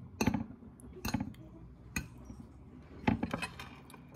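Metal fork clinking and scraping against a plate of noodles, in four short clusters about a second apart.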